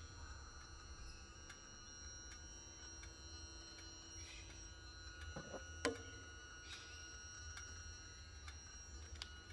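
2013 Triumph Tiger 1200 with the ignition on and engine off: a faint, steady high-pitched electronic whine made of several tones, with a soft tick about every three quarters of a second and one louder click a little past halfway. After checking other Tigers, the owner found this key-on noise is normal.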